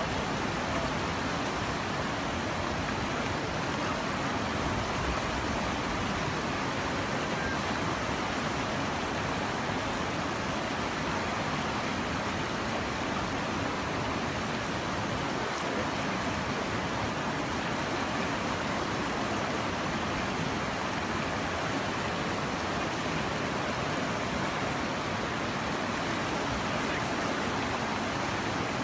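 Steady rushing noise of floodwater running down a desert wash, an even wash of sound with no breaks.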